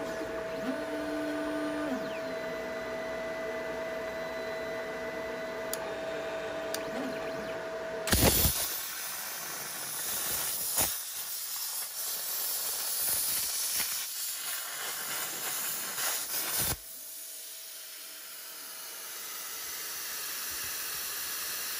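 Hynade CUT60DN plasma cutter on a CNC table: first a steady machine hum with a short motor whine as the torch is positioned. About eight seconds in the arc fires with a sudden loud hiss as the torch cuts a steel plate. It runs for about eight and a half seconds, then cuts off sharply, and a softer air hiss from the torch carries on afterwards.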